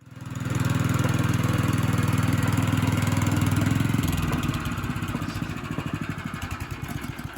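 An engine running with a steady, pulsing low drone that fades in; about four seconds in it drops in level and turns rougher, fading toward the end.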